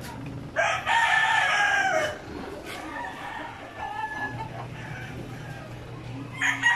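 Rooster crowing: one loud crow of about a second and a half beginning about half a second in, its pitch dropping at the end, and a second crow starting near the end.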